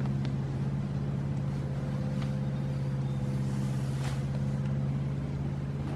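A steady low motor hum that holds one pitch throughout, with a few faint clicks over it.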